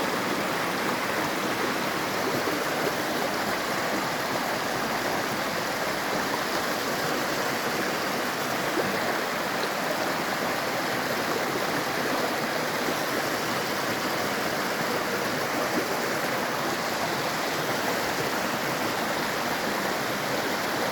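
River water rushing: a steady, unbroken hiss.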